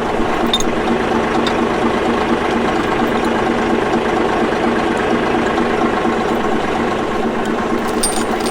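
Heavy diesel engine idling steadily, with a few faint clicks over it.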